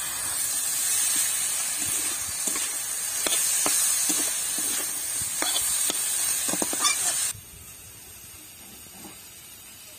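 Tiger prawns sizzling in hot oil in an iron kadai, with a metal spatula scraping and knocking against the pan several times. The sizzle cuts off suddenly about seven seconds in, leaving only faint background noise.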